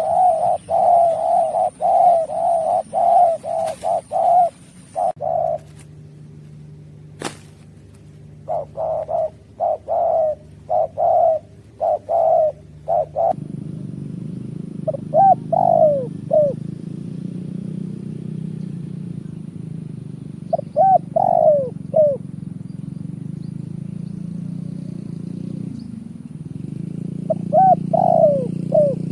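Spotted dove cooing. First come quick runs of repeated coo notes; from about halfway through there are separate phrases of gliding, falling coos. A steady low hum starts under the calls near the middle and runs on.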